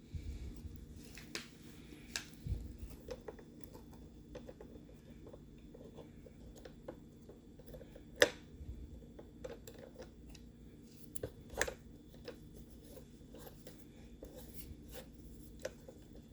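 Scattered light clicks and rubbing from hands working a Roomba robot vacuum's parts while it is being cleaned, with one sharp click about eight seconds in.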